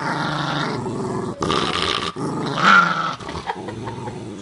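West Highland white terrier growling in long, continuous growls, broken twice briefly and fading away near the end.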